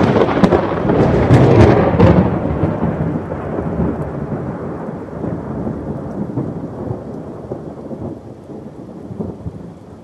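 Thunder: a loud crackling clap that rolls into a deep rumble and slowly dies away over steady rain.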